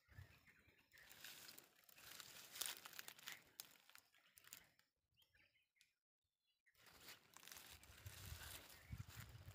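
Faint crunching and rustling of footsteps through dry leaf litter and dry grass, dying away for about a second and a half past the middle, then starting again.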